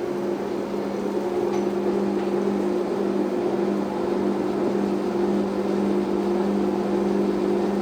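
Summit 17x60 gap-bed engine lathe running with its spindle turning at 316 RPM: a steady geared hum from the headstock, one of its low tones dropping out near the end.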